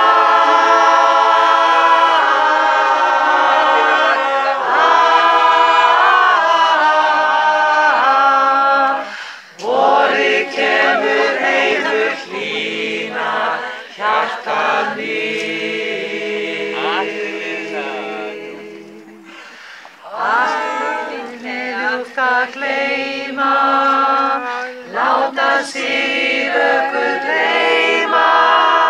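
Choir singing a cappella in harmony, with sustained chords and short breaks between phrases about nine and twenty seconds in.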